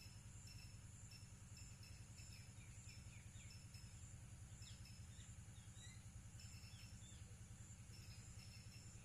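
Faint outdoor ambience: insects trilling steadily in short repeated pulses, with scattered bird chirps in the middle, over a low steady hum.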